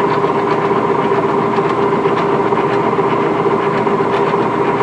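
Monarch engine lathe running under power: a steady mechanical whine with a constant hum.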